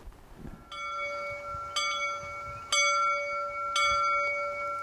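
Small chapel bell rung by hand with a pull rope: four strokes about a second apart, each ringing on into the next.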